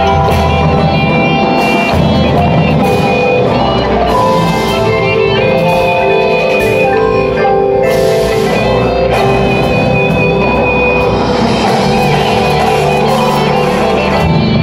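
Indoor percussion ensemble playing a loud, dense passage: marching drums over front-ensemble marimbas and other mallet keyboards, with sustained pitched tones underneath.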